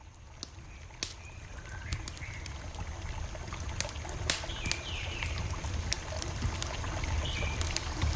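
Campfire crackling: irregular sharp pops and snaps over a low, steady rumble of burning, fading in over the first few seconds. A few short falling bird calls sound faintly in the background.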